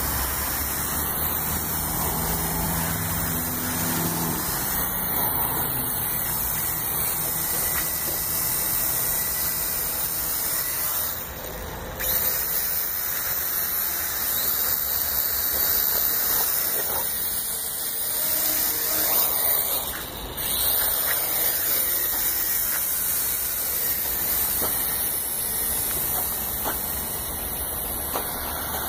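Small toy quadcopter's motors and propellers whirring steadily, the sound dropping briefly about 11 and 20 seconds in.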